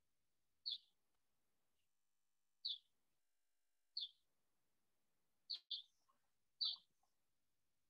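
A bird chirping: short, high single chirps every second or two, about six in all, two of them in quick succession a little past halfway.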